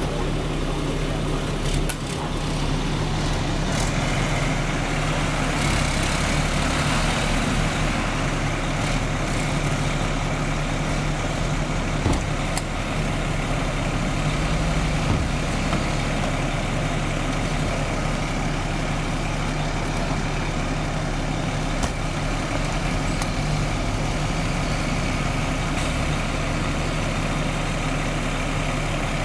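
Large diesel fire truck engine idling steadily, with a few short sharp clicks about twelve, fifteen and twenty-two seconds in.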